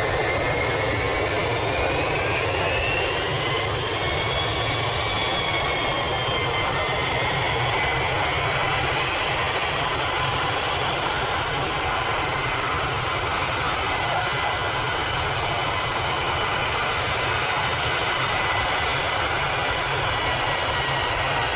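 Boeing E-4B (747-based) jet taxiing, its four turbofan engines running with a steady rumble and roar under a high whine that slides up and back down in pitch in the first few seconds, then holds steady.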